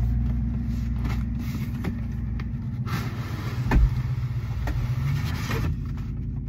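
A cardboard shoe box being opened by hand: scattered short clicks and scrapes as the lid is worked loose and slid off. Under it runs the steady low hum of a car idling, heard from inside the cabin.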